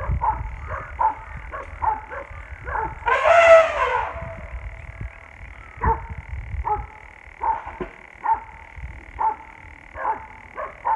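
Dogs barking repeatedly at an elephant, roughly a bark a second at an irregular pace. About three seconds in comes a louder, drawn-out cry lasting about a second.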